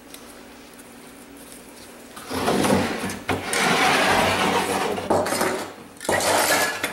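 A spray-painted board on its tray being slid and turned on a wooden workbench: rough scraping in long strokes starting about two seconds in, broken by two brief pauses.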